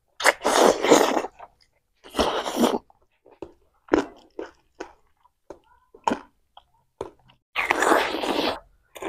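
Close-up eating sounds: wet chewing and biting in several separate bursts. The longest, near the end, is a crunchy bite and chew of a raw water apple.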